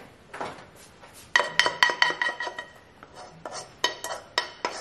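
A metal spoon tapping and scraping inside a saucepan, knocking sticky dalgona honeycomb sugar out onto a tray. A quick run of ringing clinks starts about a second in, followed by slower single taps.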